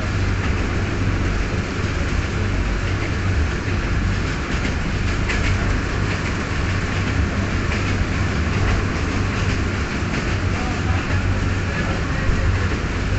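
Passenger train carriage running at speed, heard from inside: a steady rumble of wheels on the rails, with a few faint clicks.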